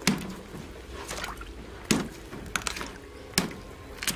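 Cassava roots being peeled with a knife in a wheelbarrow of water: water sloshing and dripping, with about five sharp knocks as the knife cuts into the root.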